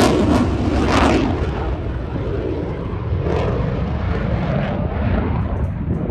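Eurofighter Typhoon's twin EJ200 turbofan engines, loud jet noise with crackle; the sharp high hiss drops away about a second in, leaving a steady low rumble.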